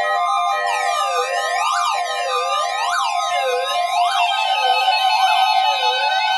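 NOAA Weather Radio warning alarm test: a steady alarm tone near 1 kHz over a wailing siren that rises and falls about once every 1.2 seconds from about a second in, with a repeating pattern of stepped electronic notes underneath.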